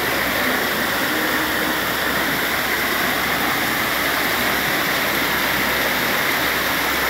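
Heavy rain pouring down, with runoff water rushing in sheets across the pavement and street: a steady, unbroken noise.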